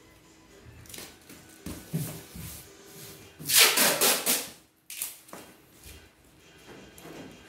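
Brown packing tape ripped off its roll in one loud, crackling pull about halfway through, after a few light knocks of handling on a wooden crate.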